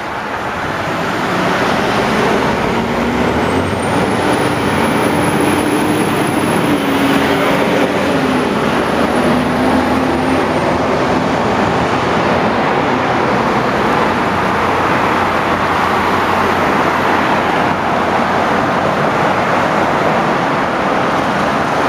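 Street traffic: cars and a transit bus driving through an intersection, a steady rush of engines and tyres. A vehicle's engine hum, rising and falling a little, and a faint high whine stand out from a few seconds in until about halfway.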